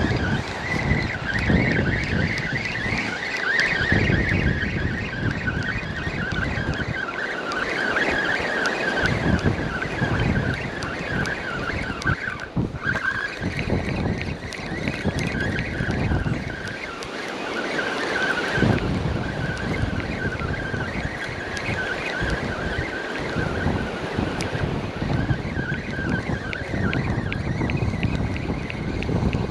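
A fishing reel being cranked to wind in line, a steady wavering whir that stops briefly about halfway through, with wind buffeting the microphone.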